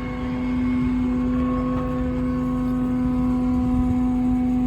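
Steady, even-pitched mechanical hum of the running service truck with its crane hydraulics engaged, with a low rumble underneath.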